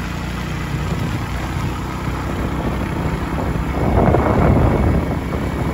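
Motorbike engine running steadily while riding, under a rushing noise that grows louder about four seconds in.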